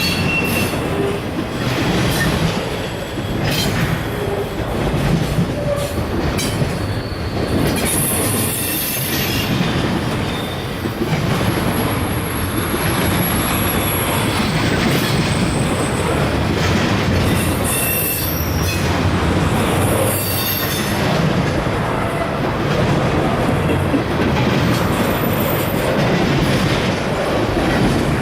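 Freight train cars rolling steadily past, wheels rumbling and clicking over the rails, with short high-pitched wheel squeals now and then.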